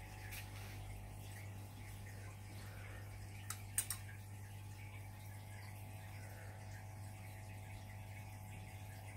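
Steady low hum and faint hiss of room tone, with two or three brief sharp clicks close together about three and a half seconds in.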